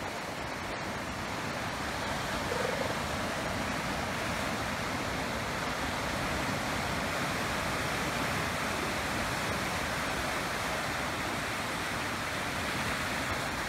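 Surf washing in and breaking on a beach and around rocks, a steady rush of water.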